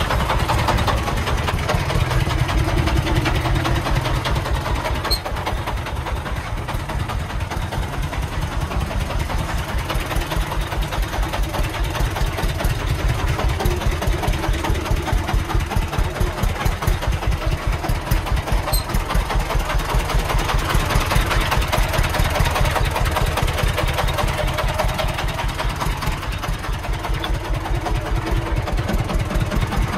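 Diesel engine of a homemade three-wheeled công nông dump truck running with a rapid, even chugging beat as the sand-loaded truck drives slowly.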